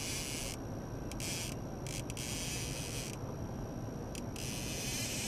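Fishing reel's drag buzzing in several abrupt spurts as a hooked salmon pulls line off against the bent rod, over the steady low rumble of the boat's outboard motor.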